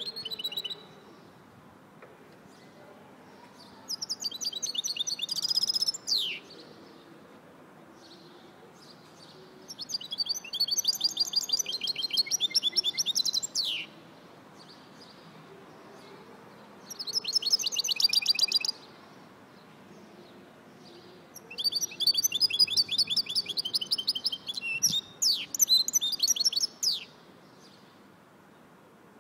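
A goldfinch mule (goldfinch × canary hybrid) singing: phrases of fast, high twittering trills lasting a few seconds each, separated by pauses of a few seconds, some phrases ending in a quick falling note.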